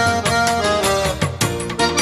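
Background music: an instrumental passage of a Bengali folk song, with a melody over a steady drum beat.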